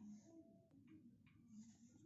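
Near silence: faint room tone with a few faint ticks.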